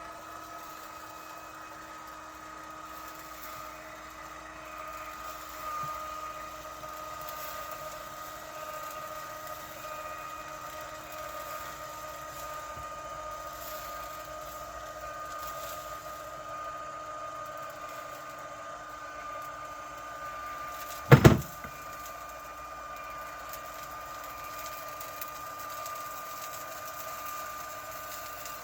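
Litter-Robot 3 Connect self-cleaning litter box giving one loud, sharp pop, a quick double crack, about three-quarters of the way through, over a steady hum. The pop is an unexplained fault noise on a brand-new unit.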